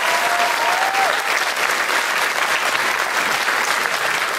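Steady applause from a crowd, the judges clapping along.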